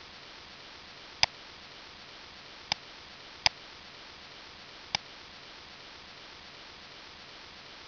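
Computer mouse button clicking: four single sharp clicks spread over several seconds, over a steady faint hiss.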